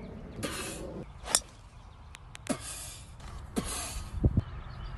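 A golf driver strikes a teed ball with a sharp crack about a second in, followed by a couple of short breathy sounds and a few low thumps near the end.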